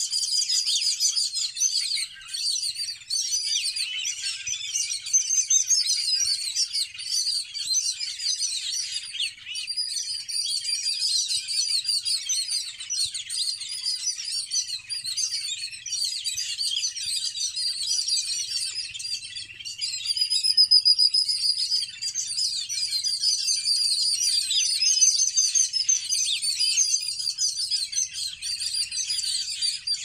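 Many small birds chirping and twittering at once in a dense, continuous chorus.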